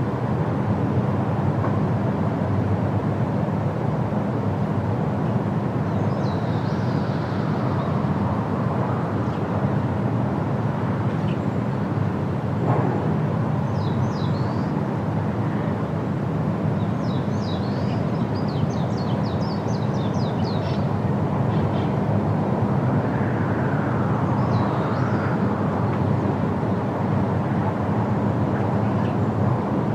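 Steady roar of the Rhine Falls' rushing water, with small birds chirping in short high bursts several times over it.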